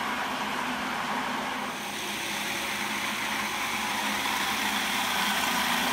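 Food processor motor running steadily, a low hum under a dense whirring hiss, blending ground cashews and seasonings with a hot almond milk and agar mixture into a smooth purée.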